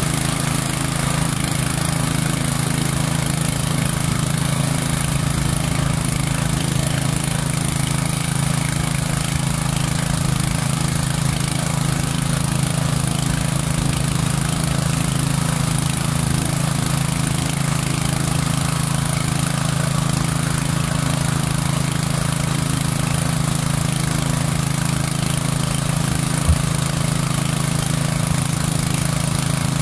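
Doosan crawler excavator's diesel engine running steadily, a low even drone that does not rev up or down. One brief knock sounds near the end.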